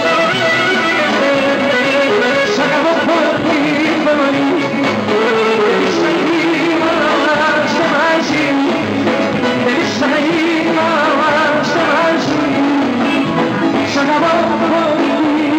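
Live Greek dance music from an amplified band, with a man singing over it.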